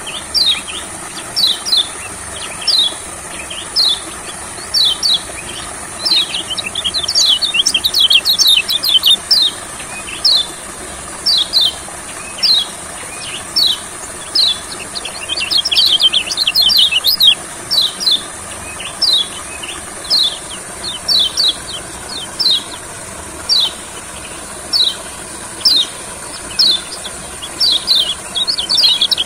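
White-eye (kecial kuning) calling: a long string of short, high, falling chirps, single notes about a second apart, breaking into quick rapid runs of chirps a few times, over a steady high hiss.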